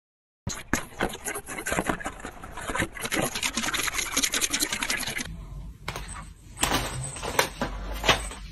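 A rapid, dense run of clicking for about five seconds. It cuts off, and then two cats wrestle on a wooden floor, with scuffling and a few sharp thumps.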